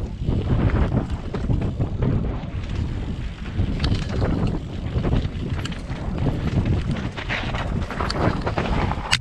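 Mountain bike riding down a dirt trail: wind buffeting the microphone over the rumble of the tyres, with scattered rattles and knocks from the bike over rough ground, the sharpest just before the end.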